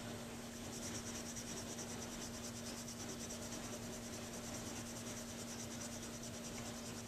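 A small abrasive rubbed in even back-and-forth strokes over the tip rail of a metal Dukoff saxophone mouthpiece, giving a soft, steady scratching as minor nicks are smoothed out.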